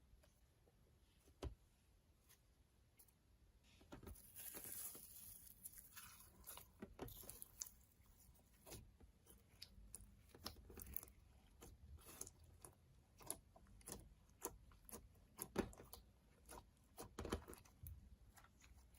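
Slime mixed with makeup being handled and worked by hand: faint, scattered clicks and crackles, with a hissing rustle about four to six seconds in.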